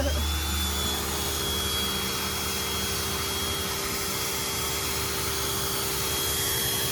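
Pressure washer spraying water: a steady hissing rush with a thin, high steady whine, which starts right as the talking stops.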